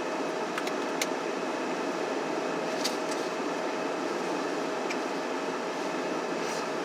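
Steady hum of a car's cabin ventilation fan, with one faint steady tone in it. A few faint short clicks sound over it.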